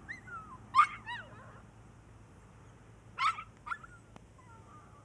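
Dog giving two sharp high yelps, about a second in and about three seconds in, with short high whines that slide up and down between and after them.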